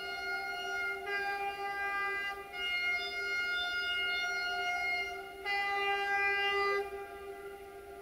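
Air horns of an Electroputere 060-DA (ST43) Sulzer diesel locomotive sounding long, sustained blasts that run into one another, the chord of notes changing about a second in, again at about two and a half and five and a half seconds, and stopping about seven seconds in.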